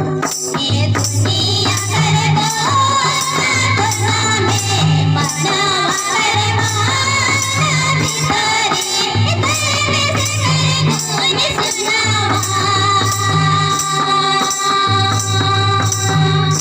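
Song with a woman singing over a steady repeating bass beat.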